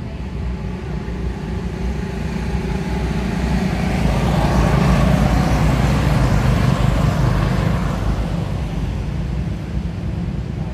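A motorcycle pulling a tuk-tuk trailer drives past on the road. Its engine and tyre noise swells to a peak about halfway through, then fades away.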